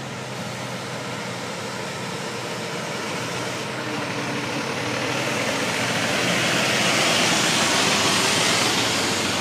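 A fire engine drives slowly past close by, its diesel engine running steadily. The engine and tyre noise grows louder as it draws level and is loudest near the end.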